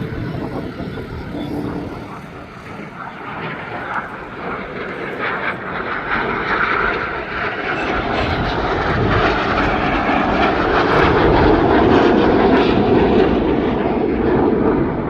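BAE Hawk T1 jets passing overhead, their Adour turbofans making a broad jet roar. The roar dips about two seconds in, then builds steadily and is loudest near the end.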